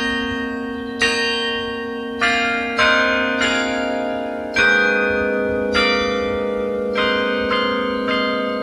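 Carillon bells playing a slow melody, one struck note about every second or less, each ringing on over sustained lower bells. The low bass bell changes to a lower note about halfway through.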